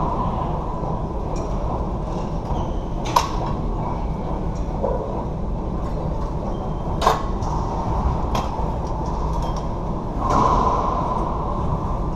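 A racquetball smacking hard off racquet and walls: two sharp smacks about three and seven seconds in, and a fainter one soon after the second, ringing in the enclosed court over a steady background hum.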